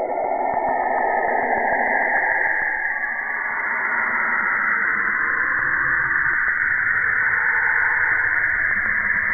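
A 'planet sound' of a gas giant: spacecraft-recorded radio emissions turned into audio, heard as a dense, muffled rushing hiss. A mid-pitched band fades out over the first few seconds while a higher hiss swells and holds steady.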